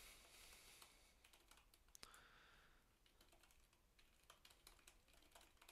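Faint typing on a computer keyboard: scattered single keystrokes, a couple about two seconds in and a short run in the last second and a half.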